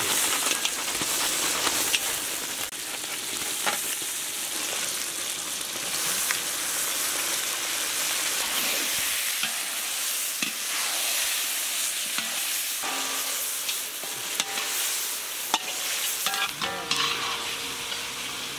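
Crab pieces tipped into hot oil and onion-tomato masala in a large iron kadai, frying with a steady sizzle while a flat iron ladle stirs and scrapes against the pan, giving short clicks.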